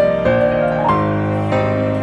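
Background music: slow, soft piano-like keyboard playing, a new note or chord about every half second.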